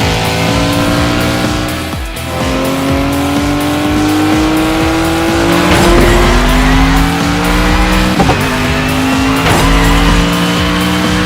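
Race car engine sound effects accelerating hard, the pitch climbing steadily and then dropping back as it shifts up, several times over.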